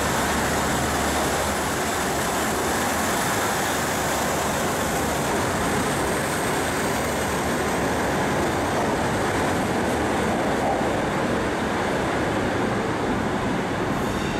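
Northern diesel multiple unit running through an underground station platform: a loud, steady rumble of engine and wheels on rail that holds level throughout as the train passes and heads off down the tunnel.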